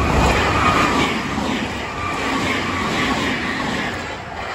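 Nankai Rapi:t limited express electric train passing close at speed: a loud rush of wheel and rail noise, loudest as the front goes by, with a faint rhythmic clatter, easing off near the end.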